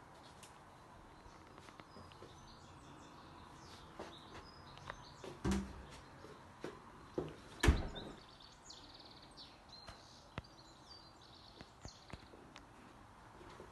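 Small birds chirping in short, high calls over a faint background hiss, with two loud knocks about five and a half and seven and a half seconds in and a few lighter clicks.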